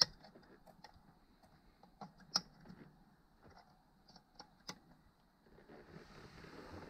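Small plastic clicks and ticks of wiring-harness connectors being handled and plugged into a car's smart key certification ECU, the sharpest about two and a half seconds in and another just before five seconds. Soft rustling near the end.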